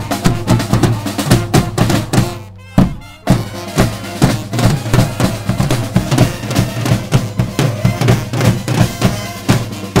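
Marching band drumline playing snare drums and bass drum in a fast, dense beat. The drums drop out for under a second about two and a half seconds in, broken by one loud hit, then pick up again.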